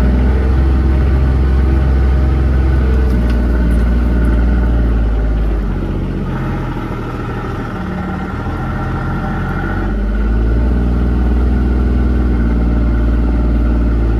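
Motor vehicle engine running steadily; its note eases off about six seconds in and picks up again about four seconds later.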